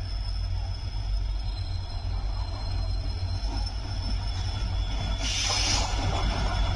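Locomotive-hauled express train approaching, a low rumble that grows slightly louder. A short burst of hiss comes about five seconds in.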